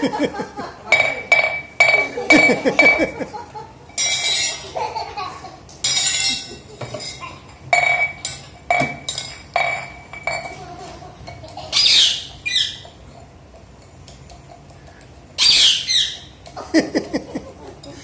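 Stainless steel tumbler knocked over and pushed along a tiled floor by a rose-ringed parakeet, clinking and clattering again and again with a ringing metal tone. Later the parakeet gives two short squawks a few seconds apart.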